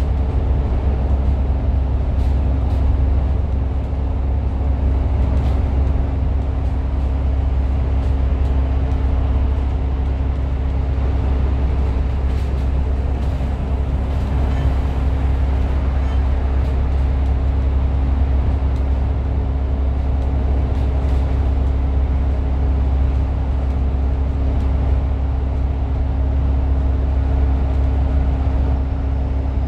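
Franchised bus running at a steady speed, heard from inside the cabin: a constant low engine and road rumble with a steady hum, and light rattles now and then.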